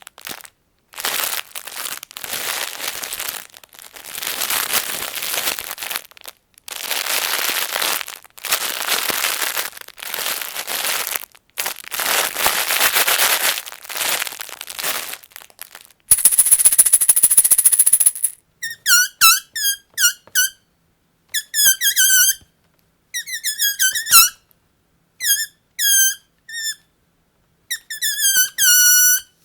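A bag being crumpled and rustled in repeated bursts of a second or two. About sixteen seconds in it gives way to a balloon letting its air out, first a hiss, then short, wavering high squeals as the stretched neck vibrates.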